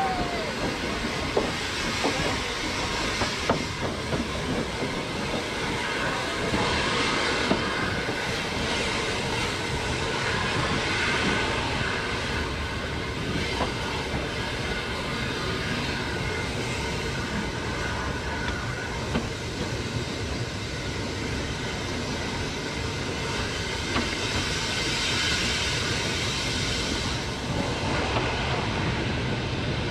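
Hunslet 0-6-0 saddle-tank steam locomotive running at low speed on jointed track: a steady rumble and hiss of the train under way, with occasional sharp clicks from wheels passing over rail joints.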